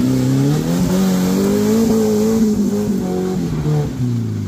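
Maruti Gypsy's engine revving as it pulls through mud on an off-road trail, its pitch rising about a second in, holding, then falling away near the end.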